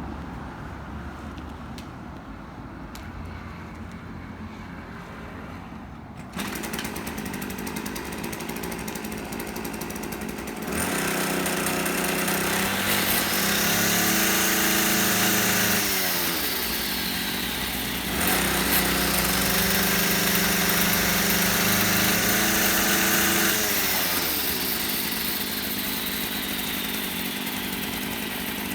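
Tanaka PCG23ECP small engine idling, stepping up a little about six seconds in, then revved twice to a high held speed for about five seconds each, falling back toward idle after each rev.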